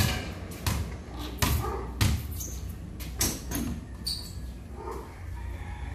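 Basketballs dribbled on concrete: a run of sharp bounces about every two-thirds of a second, then fewer and lighter bounces after about three seconds.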